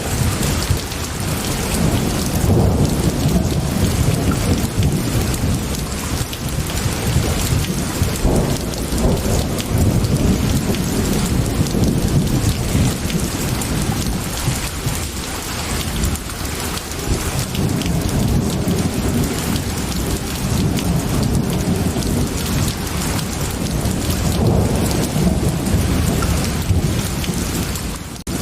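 Steady heavy rain with low rolling thunder that swells and fades over several seconds at a time.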